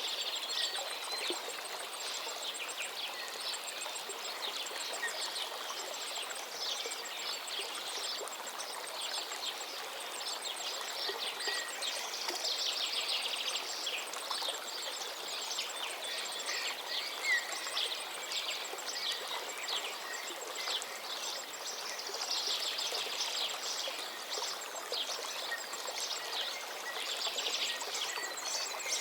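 Calm river flowing with a steady rushing trickle, with many birds chirping and singing over it throughout in short, quick calls.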